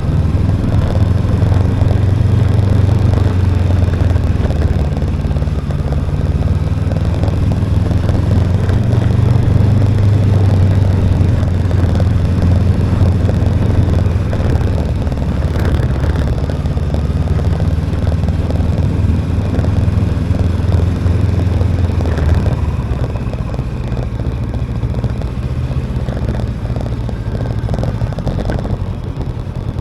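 Motorcycle on the road, the engine running steadily at cruising speed with wind and road noise. About three quarters of the way through, the engine's low hum drops away as the bike slows.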